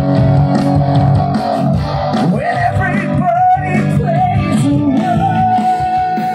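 Live band playing through the stage sound system: electric guitars and bass, with a voice singing a held, wavering melody.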